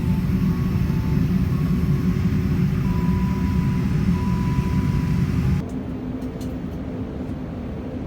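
Steady jet airliner noise, a loud low rumble with faint steady tones above it. About five and a half seconds in it cuts suddenly to a quieter, steady hum.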